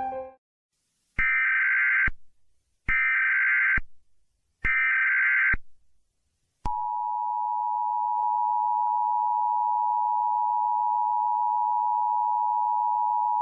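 Emergency Alert System tones: three short bursts of SAME header data, each just under a second and evenly spaced. About a second after the last burst, the steady two-tone EAS attention signal begins and holds.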